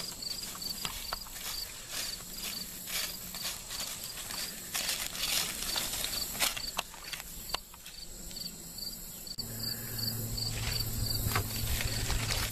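Footsteps and rustling in grass and dry fallen leaves, with an insect chirping steadily about two to three times a second. A low steady hum comes in about nine seconds in.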